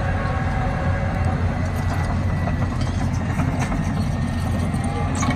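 Caterpillar D6 XE diesel-electric crawler dozer working as it pushes a load of dirt with its blade: a steady, low engine rumble.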